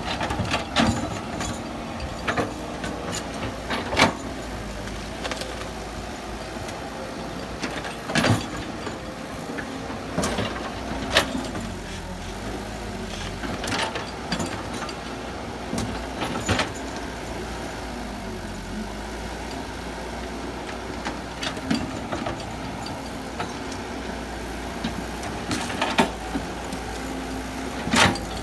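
Excavator engine running steadily, with sharp metallic clanks and knocks at irregular moments every few seconds.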